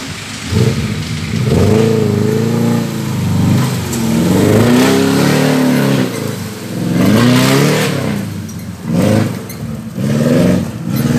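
Suzuki Jimny 4x4's engine revving hard under load on a muddy climb, its pitch rising and falling again and again as the throttle is worked.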